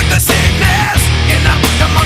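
Loud heavy metal music with distorted guitar, a heavy bass and regular drum and cymbal hits, without vocals.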